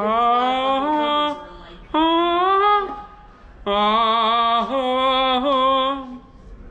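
A man's voice vocalising a wordless tune in three held phrases with slightly wavering notes.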